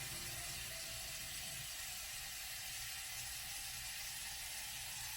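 Tap water running steadily, filling a coffee pot for the coffee maker.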